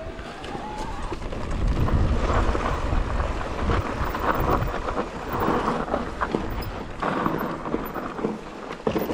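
Wind rumbling on the microphone with rattling and crunching from an electric mountain bike riding over rough trail. It gets louder about two seconds in.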